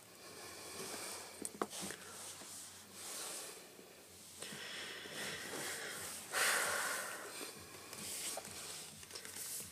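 Quiet close-up handling noise as a smartphone is tapped and set down on its cardboard box, with a sharp click about one and a half seconds in and a louder rush of noise a little past six seconds.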